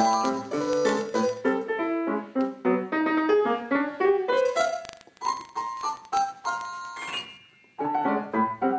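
Bösendorfer grand piano played solo in a fast classical passage of quick, even notes. About halfway the playing gets quieter, with higher, sparser notes, it falls almost silent briefly near the end, and then the quick figures start again.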